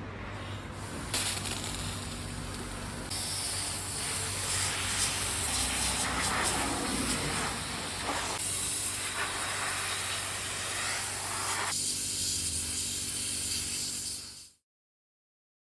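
Pressure washer spraying down a motorcycle frame: a steady hiss of water spray over a low steady hum from the washer's motor. It cuts off suddenly near the end.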